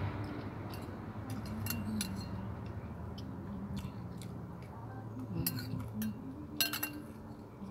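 Metal spoon clinking and scraping against a ceramic bowl of rice and vegetables: a scatter of short, light clicks, with a sharper few late on, over a steady low hum.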